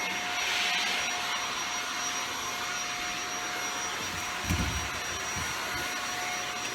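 Shark Powered Lift-Away Speed Rotator vacuum running in lift-away mode as it cleans carpet edges and corners: a steady motor whine over airflow hiss. A brief low thump comes about four and a half seconds in.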